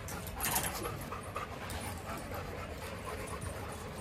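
A dog panting.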